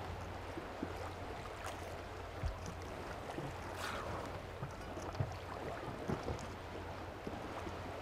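Sea ambience: water lapping and splashing over a low steady hum, with a brief wash of water just before the start and another about four seconds in.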